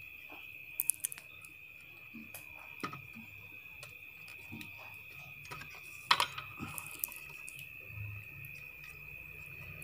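Light clicks and taps as parts are handled inside the opened chassis of a Maxtron inverter welding machine while resistors are fitted. The clicks are loudest about a second in and about six seconds in, over a steady high-pitched tone.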